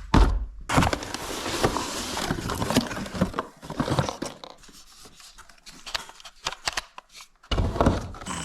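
A new tool being unboxed: a box knocked down with a couple of thunks, then a few seconds of rustling and scraping of cardboard and packaging. Scattered light clicks and knocks follow, and another heavy thump comes near the end.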